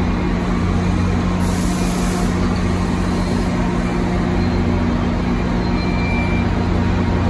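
NJ Transit diesel train's locomotive running with a steady low hum, with one short hiss of released air about two seconds in.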